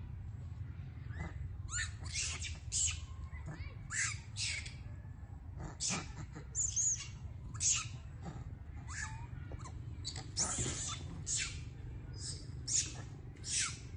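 Short, high-pitched animal calls repeated irregularly about once a second, some sliding down in pitch, over a steady low rumble.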